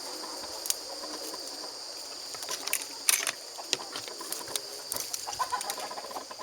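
Chickens clucking in short scattered calls over a steady high drone of crickets.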